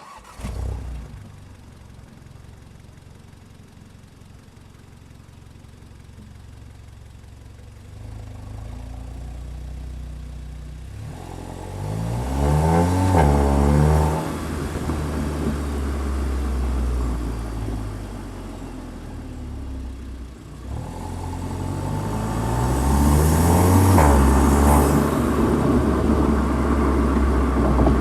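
Car engine picked up by microphones at the intake and the exhaust, running low and steady at first, then rising in pitch and loudness twice before falling back.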